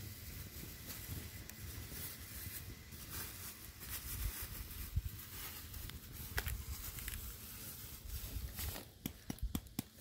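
Open wood fire burning down to embers, crackling softly with scattered sharp pops and a quick cluster of them near the end, over a low rumble.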